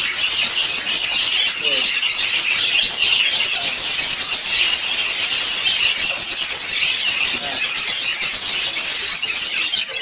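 Steady, dense high-pitched chirping of many small birds at once, a continuous chatter with no pauses.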